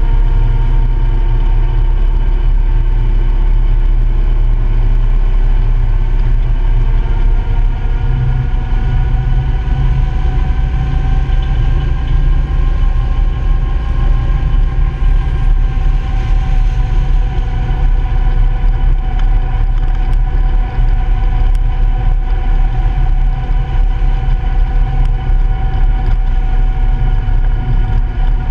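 Honda Pioneer 700-4 side-by-side's single-cylinder engine running steadily under way, its pitch drifting gently up and down, over a strong low rumble.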